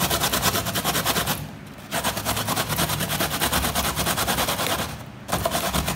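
Coconut flesh rasped up and down a stainless steel box grater in quick, even scraping strokes, stopping briefly twice, about a second and a half in and near the end.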